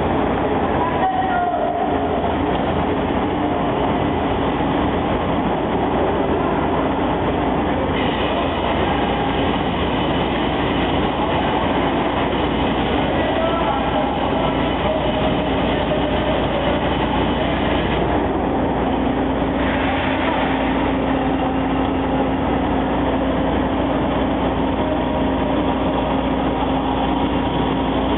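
Automatic double-head vertical glass drilling machine running: a steady, loud mechanical din, with a low steady hum joining in about two-thirds of the way through.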